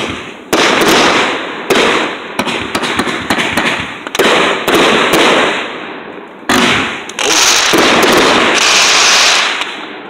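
A multi-shot consumer firework cake firing. A rapid, uneven run of loud sharp reports, each trailing off in a hiss, with longer rushing stretches in the last few seconds.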